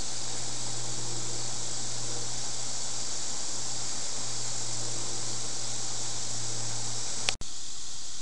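Steady hiss with a low hum under it, broken near the end by a single click and a moment's dropout, after which the hum is gone and only the hiss goes on.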